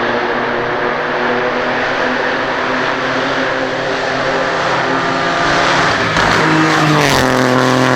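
Rally car engine running hard at high revs, getting louder about six seconds in; its pitch drops about seven seconds in, with a brief sharp crack.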